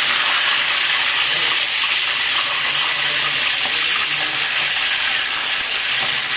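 Curry leaves, green chillies and crushed garlic sizzling steadily in hot oil in an aluminium kadai.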